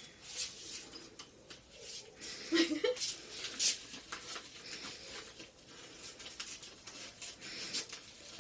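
Plastic packaging being pulled and torn open by hand, crinkling and crackling in irregular bursts, loudest around three seconds in.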